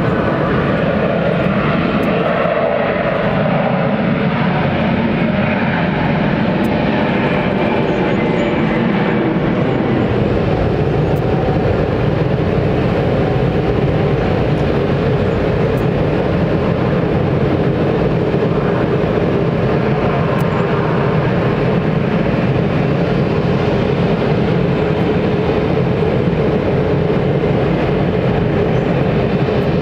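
Jet airliner engine noise across the airport: a steady rumble that holds an even level without rising or falling.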